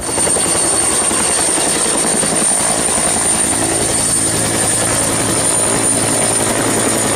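Turbine helicopter with a two-bladed main rotor lifting off and hovering close by: a steady, loud turbine whine with a thin high whistle over the fast, even chop of the rotor.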